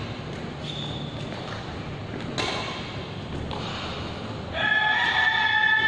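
Badminton racket strokes on shuttlecocks: sharp pops about two and a half and three and a half seconds in, ringing in a large hall. About four and a half seconds in, a loud, steady held tone begins and carries on.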